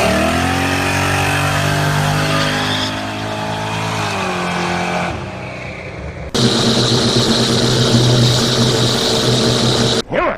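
A loud motor running at a steady pitch that sags slightly about four to five seconds in. It is cut off abruptly and replaced by another steady loud machine drone that also stops suddenly near the end.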